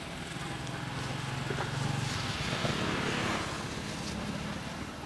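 A motor vehicle engine passing, growing louder to a peak about three seconds in and then fading.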